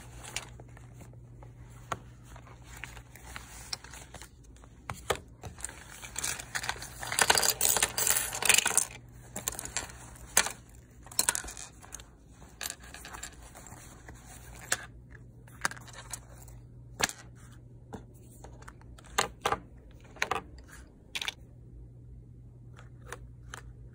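Cosmetics handled out of a zippered fabric makeup pouch: a few seconds of fabric rustling about a third of the way in, then a series of light clicks and taps as lipstick tubes, a lip-colour box and a compact are set down on a desk. A low steady hum sits underneath.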